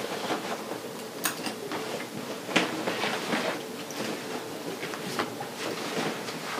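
Rustling and handling of an IKEA Förenkla roll-top backpack's fabric as it is rolled closed, lifted off the table and slung onto a shoulder, with a few sharp clicks, the loudest about a second and two and a half seconds in.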